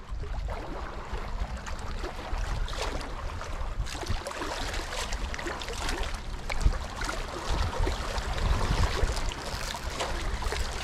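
Small waves lapping against a rocky lakeshore, with wind buffeting the microphone.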